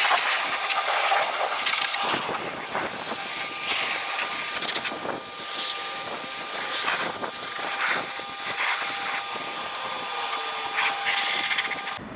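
Ryobi 1600 PSI electric pressure washer spraying a car's body: a dense hiss of water jet and spatter that surges as the spray moves, with a faint steady whine. It cuts off abruptly near the end.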